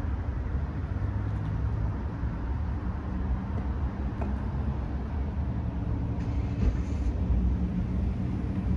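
Steady low rumble of a running vehicle engine, with a constant low hum.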